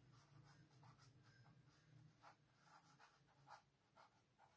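Marker pen writing on a paper wall chart: a string of faint, short scratching strokes, a few a second.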